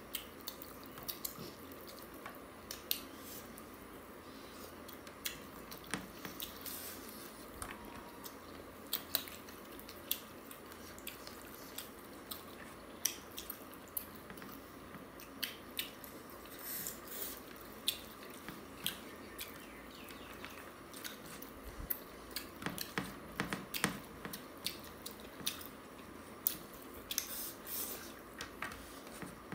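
Eating by hand: chewing and biting into chicken curry and rice, with many short wet clicks scattered throughout, coming thicker and faster in the last several seconds.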